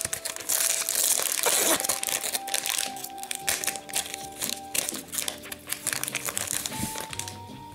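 Foil wrapper of a hockey card pack crinkling and tearing as it is pulled open by hand, loudest in a burst from about half a second to a second and a half in, then lighter crackles that die down after about five seconds. Background music plays throughout.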